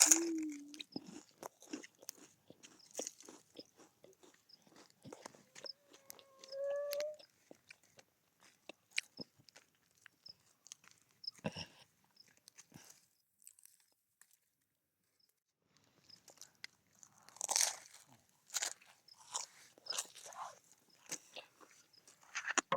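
Crunchy chewing and biting of cookies with toasted marshmallows close to the microphone, in irregular bouts of sharp crunches with a quiet pause in the middle and a denser run of crunches near the end.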